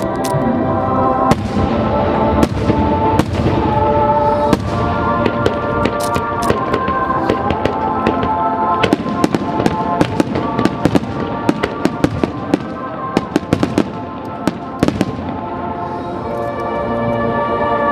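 Fireworks display going off over music from loudspeakers: repeated sharp bangs and crackles throughout, thickest in the middle, against sustained musical notes.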